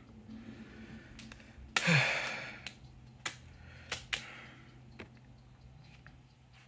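A man's loud exhale about two seconds in, falling in pitch, followed by several sharp clicks from small objects being handled.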